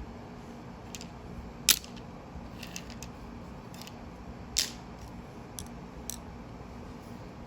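Irregular sharp plastic clicks and taps, as of Lego pieces being handled and snapped together, over a steady low hum. Two clicks stand out, about a second and a half in and again near the middle.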